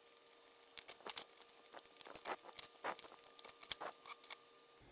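Irregular run of small clicks and taps from steel screws and 3D-printed plastic parts being handled as a small 3D-printed gear pump is unscrewed and opened up on a wooden workbench.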